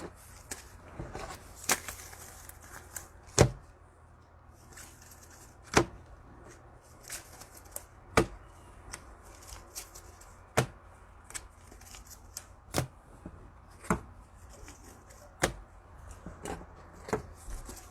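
Trading cards being handled and sorted on a table: a string of sharp taps and clicks every second or so, with soft rustling between.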